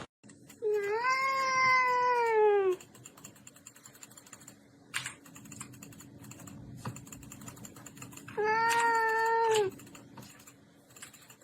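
A cat giving two long, drawn-out meows: the first about two seconds long, the second shorter, near the end. Faint light clicking runs in between.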